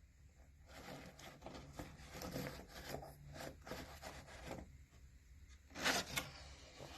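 Plastic gears of a children's spinning-gears book clicking and scraping as its gear wheel is turned by hand: a run of faint, rapid clicks for a few seconds. A louder, brief rustle follows about six seconds in.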